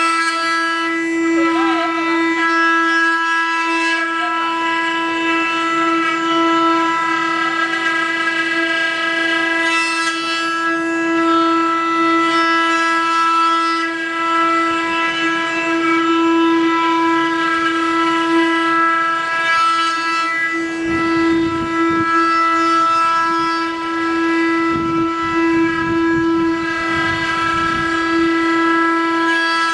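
Spindles of a multi-head 4-axis CNC wood router running with a steady high-pitched whine. About two-thirds of the way in, a rougher, uneven rumble joins the whine.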